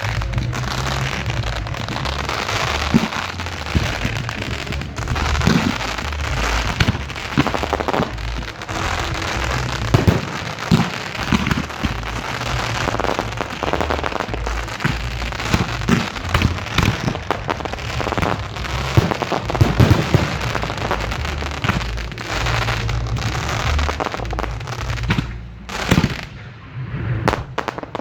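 Fireworks going off close by, a dense run of crackling with many sharp bangs from shells and cakes. There is a short lull near the end before more bangs.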